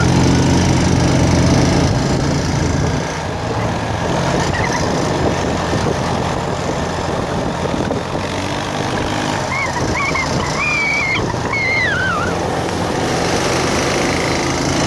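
ATV (four-wheeler) engine running under way on a leaf-covered dirt trail, with the rough, rattling noise of the ride over uneven ground. The engine eases off about three seconds in.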